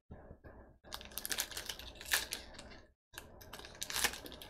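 Foil baseball card pack wrapper crinkling and crackling in the hands as it is pulled and torn open, in a rapid run of sharp crackles with a brief pause about three seconds in.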